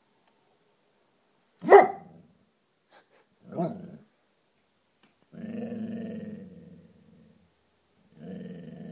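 English springer spaniel barking twice, sharply, then giving two long, low growls.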